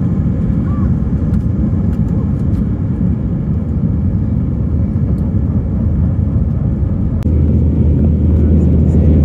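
Airliner cabin noise during takeoff and climb: a loud, steady low rumble of jet engines and airflow, heard from a window seat over the wing. About seven seconds in there is a click, after which a low drone becomes steadier and a little louder.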